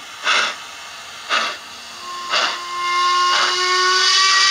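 Sound decoder of an OO-scale model steam locomotive, played through its small onboard speaker. It gives slow exhaust chuffs about once a second. About two seconds in, a long steam-whistle tone comes in and holds, drifting slightly upward, with a loud steam hiss that builds beneath it.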